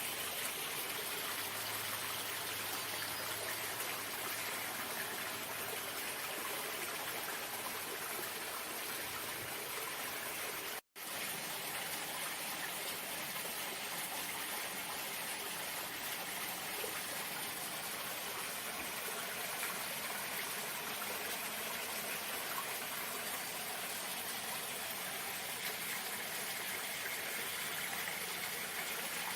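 Running water rushing steadily, an even hiss. It drops out to silence for a split second about eleven seconds in.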